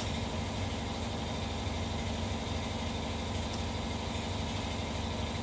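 Air compressor running steadily, a low mechanical hum, with a faint click about three and a half seconds in.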